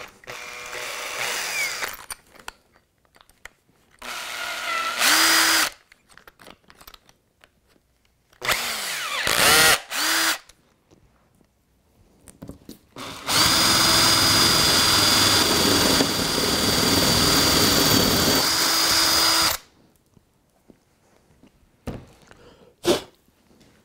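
Makita cordless drill with a 10 mm bit, boring a hole through model-railway trackbed and baseboard. It runs in a few short bursts, each winding down as the trigger is released, then one long steady run of about six seconds as the bit cuts through. A few light clicks follow near the end.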